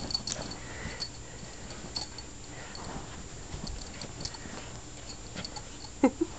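Dog playing with a towel: scattered light clicks and taps and soft scuffling, with a short pitched whine-like cry about six seconds in.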